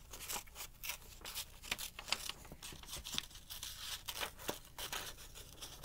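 Scissors cutting out a shape from a sheet of paper: a run of quick, irregular snips with paper rustling.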